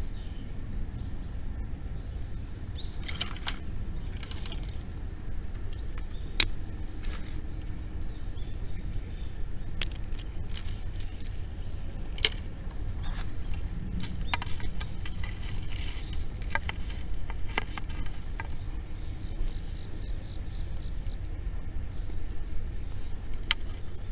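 Wood bonfire burning, crackling with scattered sharp pops, the loudest a few seconds apart, over a steady low rumble.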